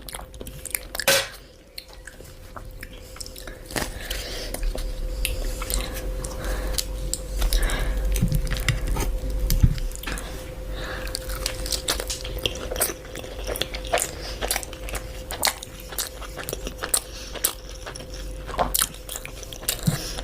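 Close-up eating sounds: someone biting and chewing crunchy food, with many short crunches and crackles, over a faint steady hum.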